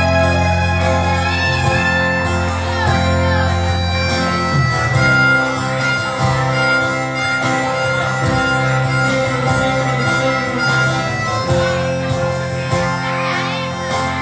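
Harmonica played live into a vocal microphone, a melody of held and bending notes over a band backing.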